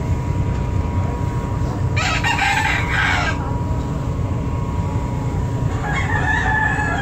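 A rooster crowing about two seconds in and again near the end, the second crow long and sliding slightly down at its close, over the steady low drone of a ferry's engines.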